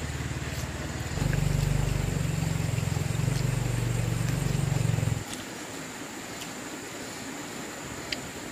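A low, steady engine hum that gets louder about a second in and cuts off suddenly about five seconds in, with a few faint clicks.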